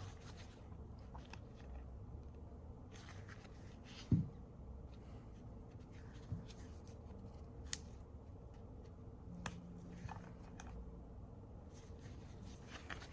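Faint scraping and clicking of tools and fingers working an iPhone 14 screen loose from its frame, with one low thump about four seconds in, over a faint steady hum.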